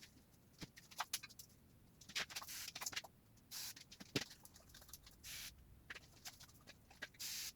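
Faint, scattered clicks and taps of hand tools on a rusty truck frame, with a few short hissy scrapes.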